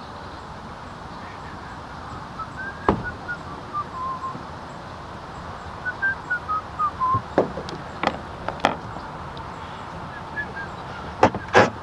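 Paddle knocking several times against the kayak and the dock as the kayak comes to rest alongside, the loudest two knocks near the end. A bird calls in short falling runs of notes twice, over a steady hiss of water and wind.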